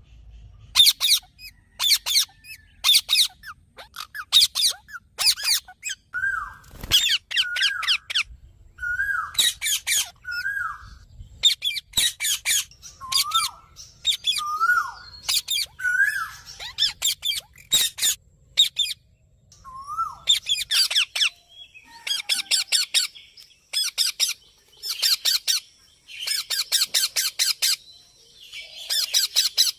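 Indian ringneck parakeet calling: runs of sharp, rapid, high-pitched squawks, broken up through the first two-thirds by short whistled notes that rise and fall.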